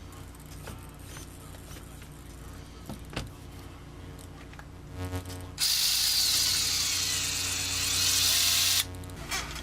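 Electric motor of an RC rock crawler driven through its ESC, whirring with a wavering whine for about three seconds through the front axle gears, starting suddenly about halfway in and cutting off abruptly, preceded by a short buzz. It is the first test run of the freshly soldered front motor, which turns forward on the trigger.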